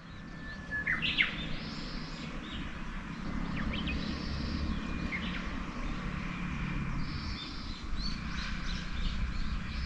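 Birds singing: a clear held whistle that breaks into quick rising notes, heard about a second in and again around five seconds, with other higher bird notes between, over a low steady background noise.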